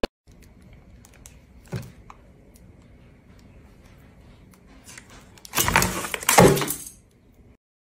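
Cat pawing at a plastic food tub on a tabletop: a soft knock about two seconds in, then a loud rustling scrape lasting over a second, a little past the five-second mark.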